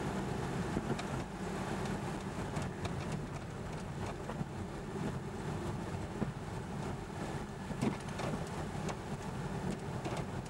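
Cabin noise of a car on the move: a steady rumble of engine and tyres on the road, with a few small knocks from the car going over bumps.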